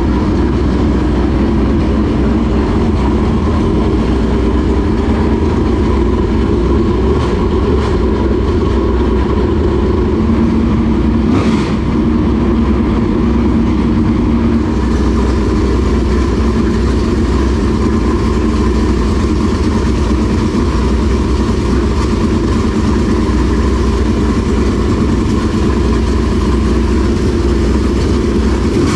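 Dirt late model race car's carbureted V8 idling steadily, now running after its ignition timing, which had been set way too high, was corrected. One brief click about halfway through.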